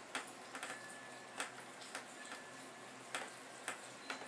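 A string of light, sharp ticks and clicks at uneven intervals, about eight in all, over a faint quiet room hiss.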